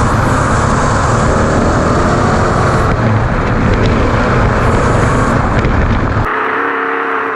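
V8-powered Ford Ranger desert race truck driven hard over rough ground: a loud, steady mix of engine and off-road noise. About six seconds in the noise drops suddenly to a quieter, clearer engine note.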